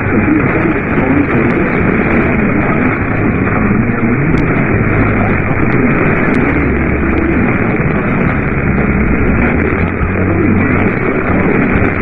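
Radio static: a steady, loud hiss from a receiver on a weak or noisy signal, with a few faint crackles.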